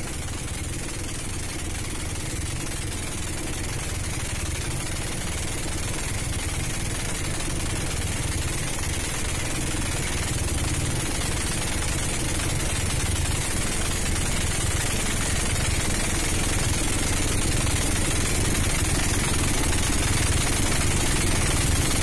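Boat engine running steadily, with a rushing hiss over it, growing gradually louder.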